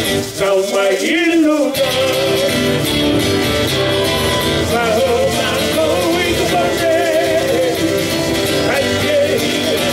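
Live Hawaiian hula music: a singer with vibrato over strummed guitars and other plucked strings, with a steady low beat. The bass and beat drop out briefly about half a second in and come back before the two-second mark.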